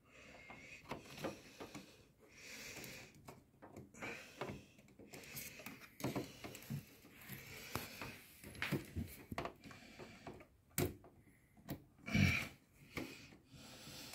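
Small clicks, taps and rubbing of plastic and metal as RAM sticks are worked into motherboard slots inside a cramped PC case, with a sharper click and a soft thump near the end.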